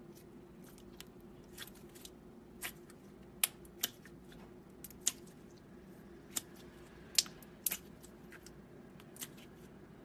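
Slime being played with by hand: a dozen or more sharp, irregular clicks and pops, over a faint steady hum.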